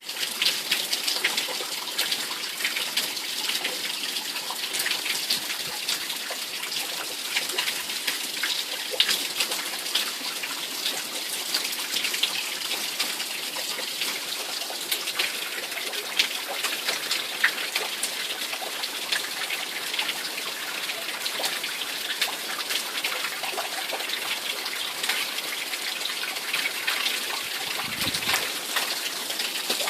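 Heavy tropical-storm rain from Hurricane Irma pouring steadily, with water gushing and many small drop impacts spattering.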